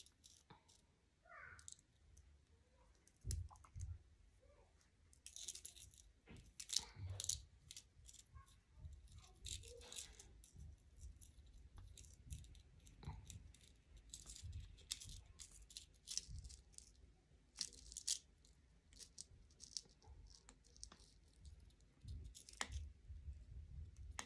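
Faint, scattered clicks and rustles from a thin wire strung with small beads being handled and twisted by hand.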